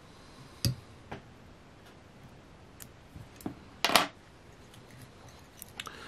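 A few faint small knocks and clicks from handling at a fly-tying vise, the sharpest about half a second in, and a short scratchy rustle about four seconds in as fingers grip the marabou tail on the hook.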